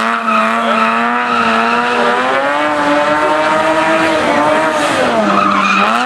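BMW 5 Series E34 engine held at high revs while drifting, its pitch rising and falling with the throttle, dipping about five seconds in and climbing again, over squealing tyres.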